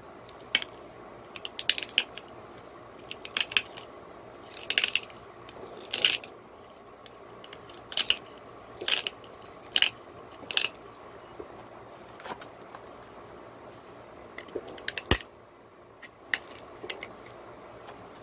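Cherry quartz slab being pressure-flaked with a hand-held flaker: sharp clicks as small flakes snap off the edge during final shaping, about a dozen at irregular intervals, the loudest a little past the middle.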